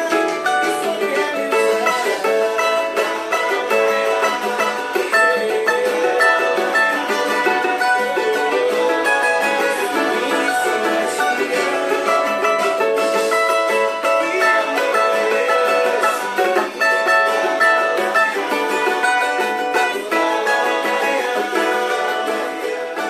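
Cavaquinho played solo: a steady, unbroken run of plucked chords and notes, bright and high with no bass beneath.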